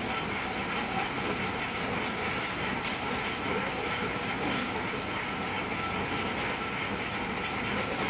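Piling machine running steadily, an even mechanical din with a faint steady high whine and no separate blows.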